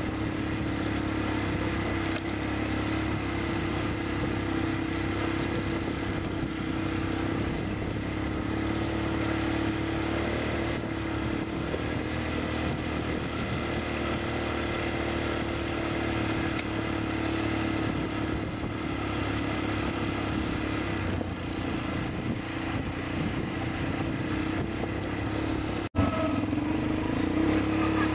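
ATV engines running at a steady cruising speed, making a constant drone at an unchanging pitch. About two seconds before the end the sound cuts out for an instant and comes back slightly louder.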